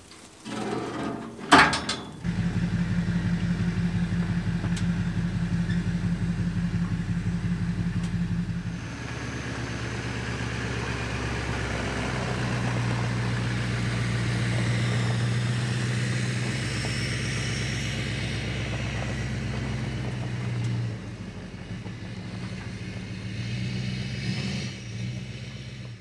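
A couple of sharp knocks, then a large engine running steadily from about two seconds in. About nine seconds in the engine sound changes and gets quieter, and later its pitch rises and falls a few times.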